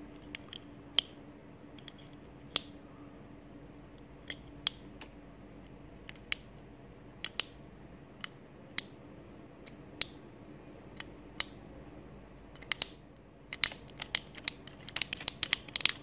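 Tactile push-button switches under the blue plastic caps of a 3x4 analog keypad module clicking as the keys are pressed one at a time. Single clicks come about a second apart, then a quick run of clicks near the end.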